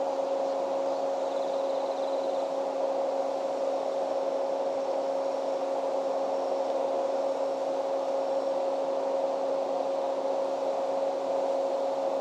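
Steady mechanical hum: a constant two-tone drone over an even whirring noise that does not change.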